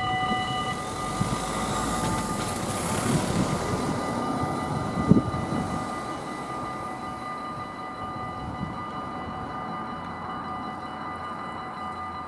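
Level-crossing warning bells ringing steadily while a regional train runs past over the rails and fades away. There is one sharp knock about five seconds in. By the end only the bells and faint background noise remain.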